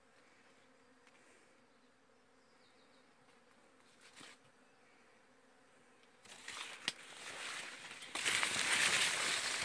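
Maize leaves rustling and scraping against the phone as it is pushed in among the corn stalks. The rustle starts about six seconds in, has a sharp tick just before seven seconds, and is loudest near the end. Before that there is only a faint steady hum.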